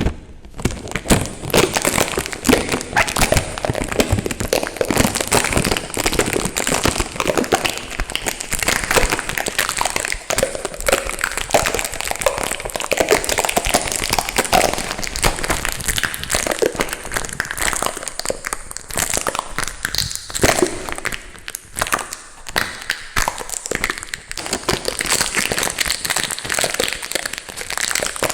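Adhesive tape stuck over a microphone being handled, giving rapid crinkling and crackling pops.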